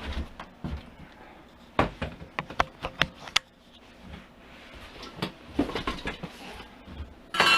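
Handling noise from a diesel heater being unpacked: scattered knocks and clicks, a quick run of sharp clicks about two to three and a half seconds in, and a louder clatter near the end.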